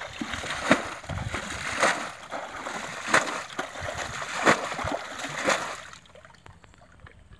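Water being bailed out of a shallow muddy pool with a plastic bucket: a scoop and a splash of tossed water about once a second, five times, going quieter in the last second or so.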